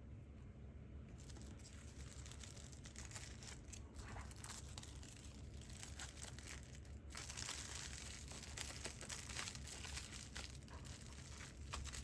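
Wrapping material crinkling and crackling as it is handled, in irregular crackles that get busier about seven seconds in.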